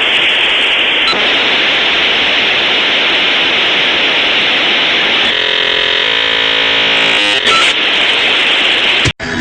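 Dial-up modem handshake over a phone line: a loud, steady hiss of scrambled data, with a buzzing tone laid over it for about two seconds in the middle. It cuts off abruptly near the end.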